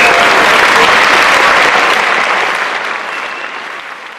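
Large audience applauding, a dense steady wash of clapping, fading away over the last second and a half.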